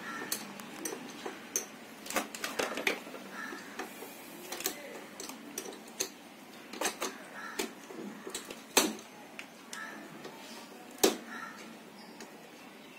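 Irregular metallic clicks and clinks of hand tools and small metal parts being handled at a motorcycle's battery compartment, with two louder clicks about nine and eleven seconds in.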